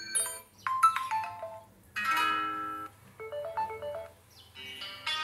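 Short SMS notification ringtones played one after another from an Android ringtone app: about five brief melodic chimes, each around a second long, with short pauses between them.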